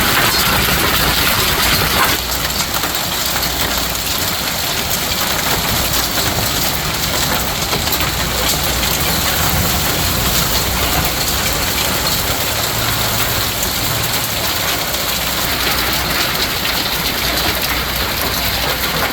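Hailstorm: hail and heavy rain pelting down steadily, a dense patter of many small impacts. It eases slightly about two seconds in.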